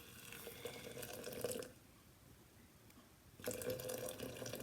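Hot water being poured onto loose green tea leaves in a tea press, in two pours with a short pause between them.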